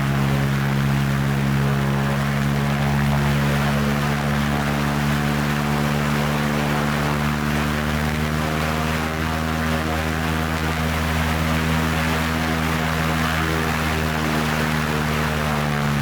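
Propeller airplane engine droning steadily at a constant pitch, with no change in speed.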